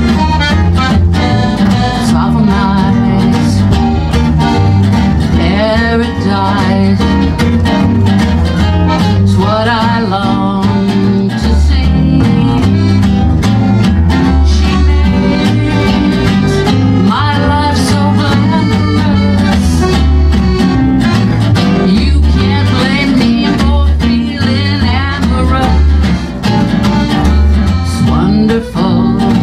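Small acoustic jazz band playing a swing tune live: archtop and acoustic guitars strumming, piano accordion and upright double bass, with wavering melody lines over a steady bass pulse.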